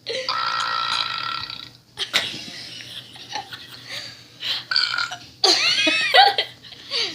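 A person burping after drinking Pepsi: one long, drawn-out burp of nearly two seconds, then several shorter burps, with another loud one about five and a half seconds in.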